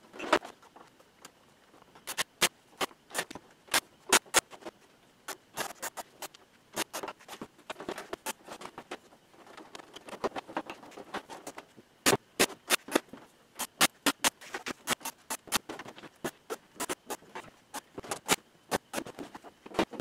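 Irregular sharp clicks and taps of plastic parts as a dehumidifier's plastic case panels are handled and fitted back on, at times in quick runs of several clicks a second.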